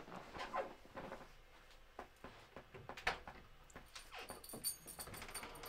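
Faint rustling of vinyl bag panels being handled, with small scattered clicks as sewing clips are pushed onto the panel edges.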